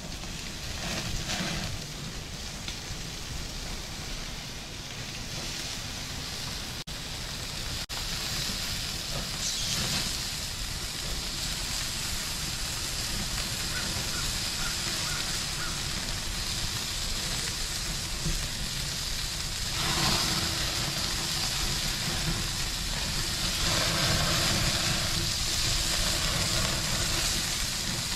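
Meat sizzling on a grill: a steady crackling hiss of fat and juices hitting the fire, growing louder about two-thirds of the way through.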